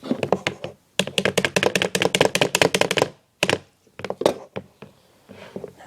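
A rapid run of small sharp clicks and taps, about ten a second, for about two seconds, then a few separate clicks. These are hands and a tool working on the small plastic and metal parts of a P-23 BB pistol while trying to free a pin held by retaining rings.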